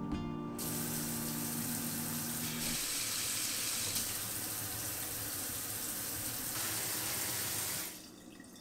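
Water running from a pull-down kitchen faucet's spray head into a stainless steel sink: the lever is turned on about half a second in, the flow runs steadily, and it is shut off shortly before the end.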